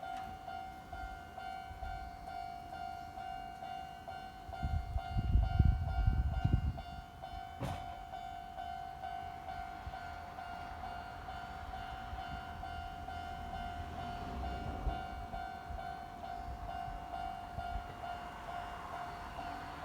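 Japanese railway level-crossing alarm ringing steadily with its repeating two-tone electronic bell. A brief low rumble rises about five seconds in and dies away after two seconds, and there is a sharp click shortly after.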